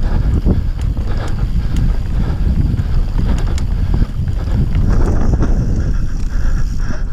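Wind buffeting the camera's microphone on a fast mountain-bike descent, with tyres rumbling over dirt and roots and sharp rattles and clicks from the bike.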